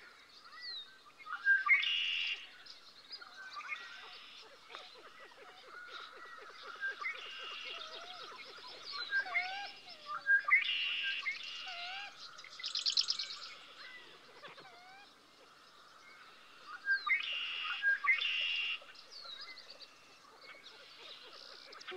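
Several wild songbirds singing together, a mix of whistled chirps and slurred notes. One bird repeats a louder song phrase three times, about every seven or eight seconds, and a brief buzzy trill comes near the middle.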